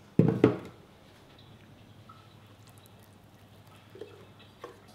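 A sharp double clunk as the blender lid is set down on the benchtop, then near-quiet, with faint soft sounds near the end as thick blended date-and-banana batter is poured and scraped from the blender jug into the bowl of dry ingredients.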